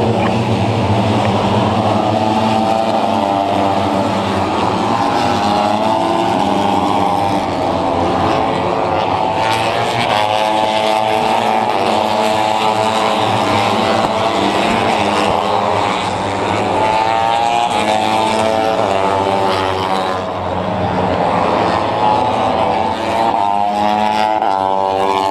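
Several racing motorcycle engines running hard around the circuit at once, a loud continuous engine sound whose pitch keeps rising and falling with acceleration and gear changes.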